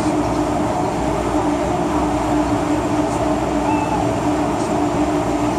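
Interior running noise of an MTR M-Train electric multiple unit at speed between stations: a steady rumble and rush with a constant hum.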